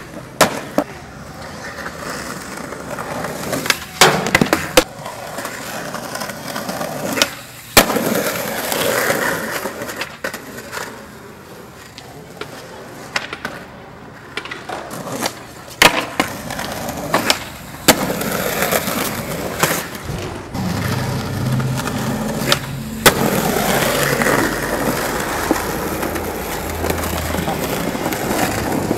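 Skateboard wheels rolling on rough asphalt, broken by a dozen or so sharp pops and slaps of boards snapping off the ground and landing during tricks.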